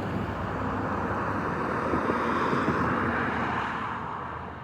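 A road vehicle passing by, a steady rush of tyre and engine noise that fades away near the end.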